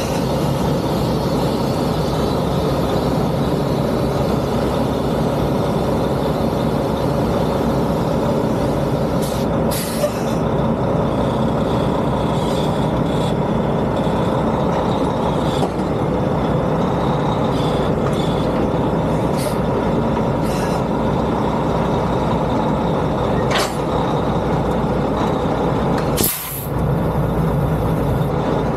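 Semi truck's diesel engine running steadily while the tractor backs under a trailer. Short air hisses come from its air system several times, and there is a longer, louder hiss about 26 seconds in.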